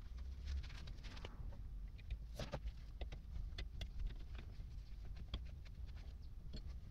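Light, irregular metallic clicks and ticks of a hex key turning the clamp-band bolts on a metal pump housing, with handling noise from the hands on the housing over a low steady rumble.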